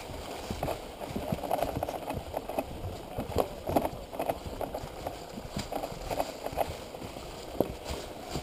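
Boots crunching and scuffing through dry fallen leaves, with leaves crackling under the tyres as a dirt bike is pushed by hand with its engine dead. The irregular crackling and footfalls run all through.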